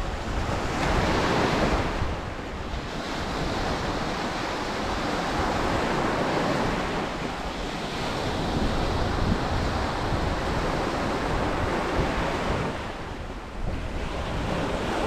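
Surf washing onto the beach, with wind buffeting the microphone; the wash swells and eases in slow surges, dipping briefly near the start and again near the end.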